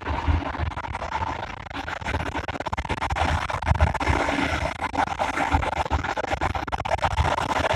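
Express train running at speed along the line: a continuous, rough rattling rumble with irregular low thumps.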